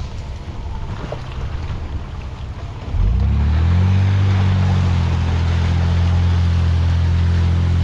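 Four-wheel-drive car driving along a muddy, rutted dirt track. At first only tyre and track noise is heard. About three seconds in the engine note jumps up and rises in pitch as the car accelerates, then settles into a steady low drone.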